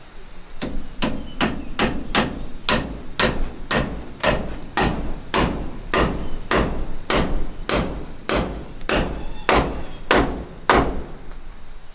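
A hammer striking wood in a steady run of about twenty blows, roughly two a second, stopping about a second before the end.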